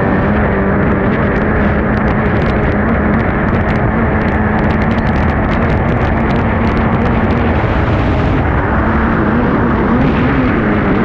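Racing hydroplane's engine running flat out over a loud rush of wind and water, with a run of sharp ticks through the middle. The engine note wavers and shifts near the end as the boat nears a turn buoy.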